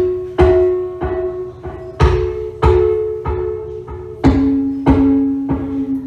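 Live experimental music: a run of struck, ringing percussive hits about every half second, each leaving a held, bell-like pitched tone. The ringing pitch drops to a lower note about two-thirds of the way through.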